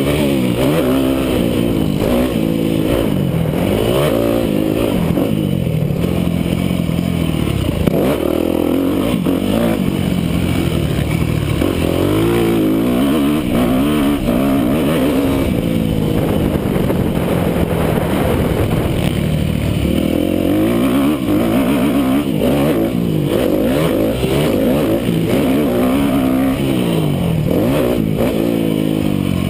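Yamaha YZ250F motocross bike's single-cylinder four-stroke engine at racing speed, heard from on the bike. Its pitch climbs and drops again and again as the throttle is opened and closed and the gears are shifted.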